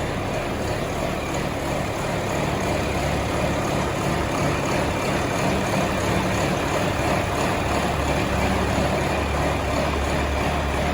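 Diesel engine of a John Deere 4440 tractor running steadily, a little louder in the second half.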